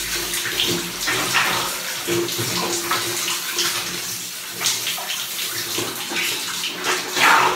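Shower water spraying and splashing over a person's head and body as shampoo is rinsed off, in uneven splashes with a louder splash near the end.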